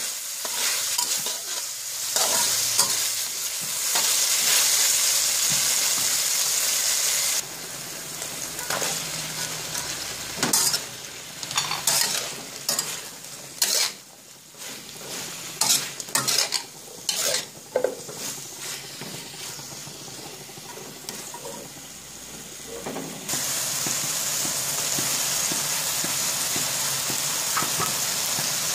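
Mushrooms and vegetables sizzling in a hot oiled wok as a metal spatula stirs and tosses them. About a third of the way in the sizzle drops abruptly and the spatula's clinks and scrapes against the wok stand out. Near the end a steady sizzle returns.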